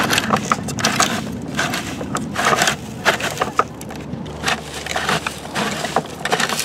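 Sand grinding and rattling inside the turning drum of a Tonka Steel toy cement mixer as it is rotated by hand, a dense run of gritty scrapes and sharp irregular clicks.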